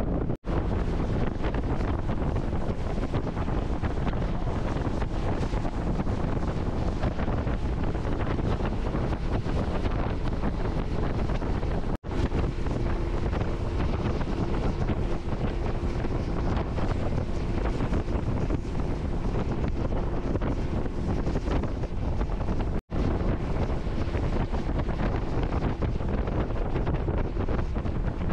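Heavy wind rushing over the microphone of a moving boat on open water, with a faint steady hum in the middle. The sound cuts out very briefly three times.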